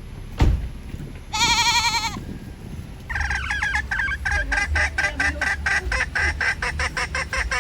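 A sharp thump, then a single quavering bleat from a farm animal, followed by farm poultry honking and cackling rapidly over and over, about five calls a second.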